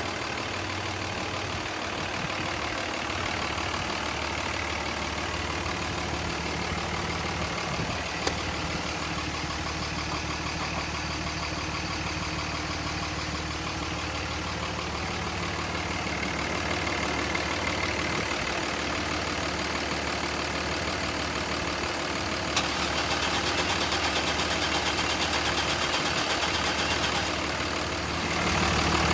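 A truck engine idling steadily, a little louder in the second half, with a couple of faint clicks.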